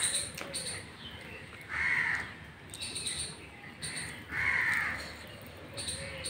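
A crow cawing, several harsh calls about two seconds apart, the longest about four and a half seconds in.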